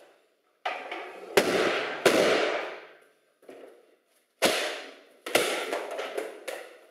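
Books pulled from a bookshelf and thrown down onto the floor, landing as about five sudden crashes, each trailing off over roughly a second.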